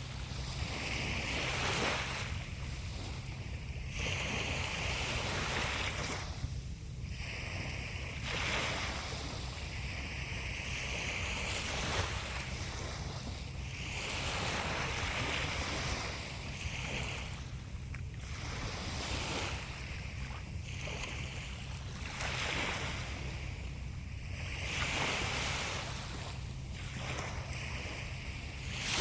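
Sea waves washing onto the shore, each wash swelling and fading every two to three seconds, over a steady low rumble.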